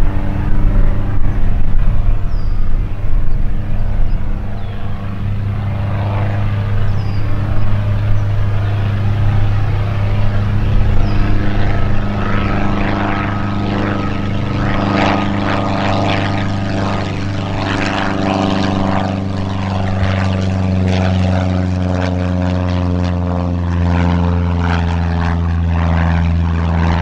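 Piper Arrow's four-cylinder Lycoming engine and propeller at takeoff power, a steady drone as the plane lifts off and climbs past. A rougher, rasping propeller buzz comes in about halfway, and the pitch sinks slightly near the end as it draws away.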